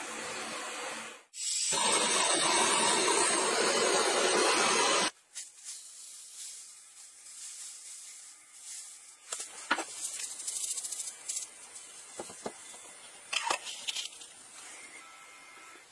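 A loud, steady hiss for about four seconds that cuts off abruptly, followed by dry yerba mate leaves pouring from a paper bag into a calabash gourd: faint rustling with a few light clicks and taps as the gourd is handled.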